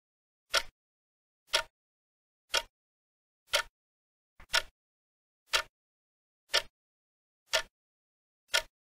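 Countdown timer sound effect: a clock ticking about once a second, nine short ticks, counting down the time allowed to answer.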